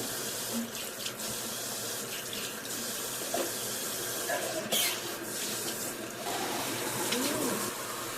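Tap water running steadily into a sink or container, with a short knock about five seconds in.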